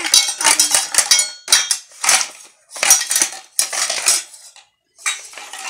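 Metal spoon clattering and scraping against a small stainless steel pot as toy plastic vegetables and fruit are stirred inside it. The clatters come in quick repeated strokes about twice a second, with a brief pause near the end.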